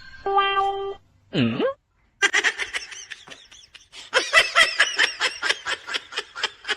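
People laughing, a rapid run of laughs from about two seconds in, after a few short musical tones and a brief swooping sound.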